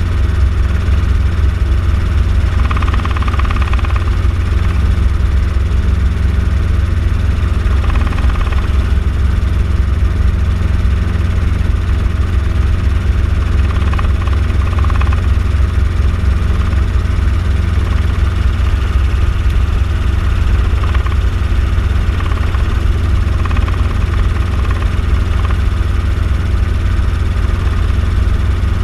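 Small helicopter in steady flight, heard from inside the cabin: a loud, unbroken deep drone of engine and rotor.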